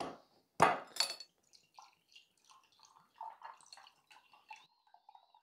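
Two short, sharp noises about half a second apart near the start, then kombucha poured from a swing-top glass bottle through a small strainer into a glass: a faint, uneven trickle.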